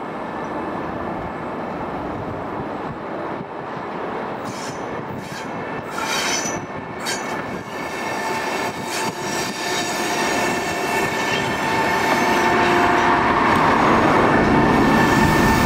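Electric freight train, a VR Sr3 (Siemens Vectron) locomotive hauling tank wagons, rolling slowly past. Its wheels click over rail joints and points partway through, and a steady high wheel squeal grows louder as the tank wagons go by.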